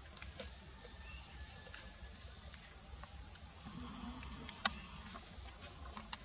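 Two short, high-pitched animal squeaks, one about a second in and another about three and a half seconds later, over faint scattered ticks.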